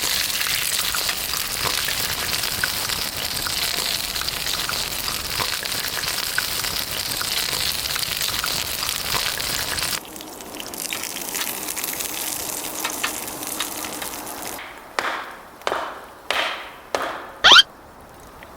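Food frying with a steady sizzle and small crackles for about ten seconds. Then it cuts abruptly to quieter sound with four or five short, sharp sounds that each fade quickly, the last one the loudest with a brief squeak.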